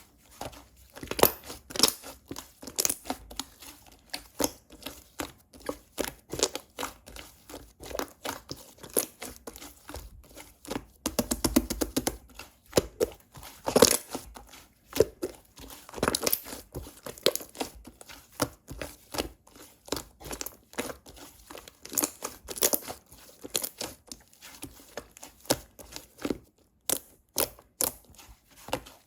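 Slime (액괴) being squished and pressed by hand, giving irregular crackling pops and clicks several times a second, with a quick run of rapid pops about eleven seconds in.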